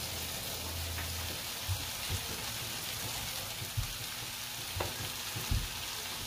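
Vegetables sizzling steadily in a stainless steel pan under a freshly added heap of shredded cabbage, with a few soft knocks, and a hand pressing the cabbage down near the end.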